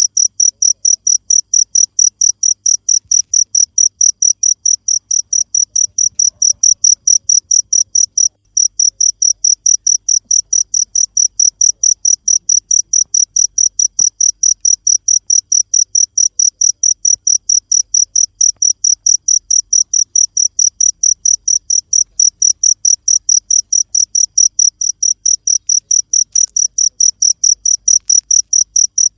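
Cricket chirping loudly in a fast, even rhythm of high-pitched chirps, with a brief break about eight seconds in.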